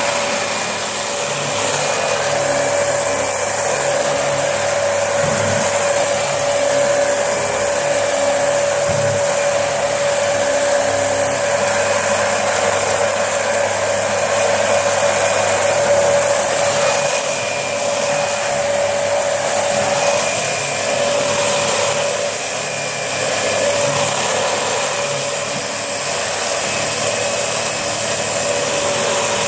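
Dyson DC25 upright vacuum cleaner running steadily on carpet, its motor giving a constant high whine.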